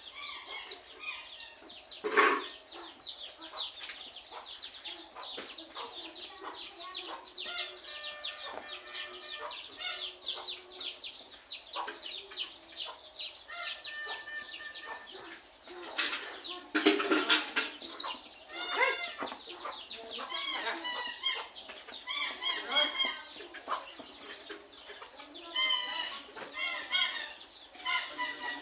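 Chickens clucking, with a constant stream of short, high chirps falling in pitch; a few sharp knocks stand out, about two seconds in and again around sixteen seconds in.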